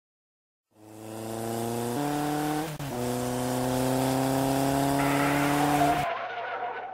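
Dirt bike engine sound effect running at a steady note. It steps up in pitch early on and then climbs slowly, gains a hiss near the end, and cuts off suddenly.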